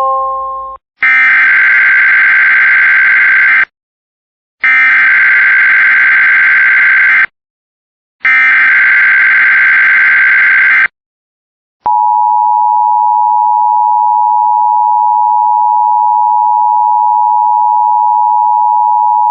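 Emergency Alert System activation: three loud bursts of SAME digital header data screeching, each about two and a half seconds long and a second apart, then a steady two-tone attention signal held for about eight seconds, announcing a severe thunderstorm watch.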